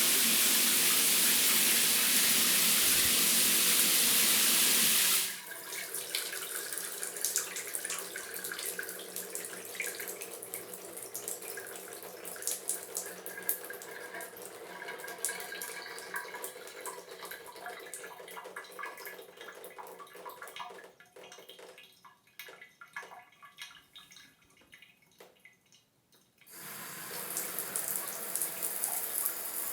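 Bathroom shower water: a steady full spray that cuts off abruptly about five seconds in, leaving splashing and trickling that thins to scattered drips, then the water comes on again steadily near the end.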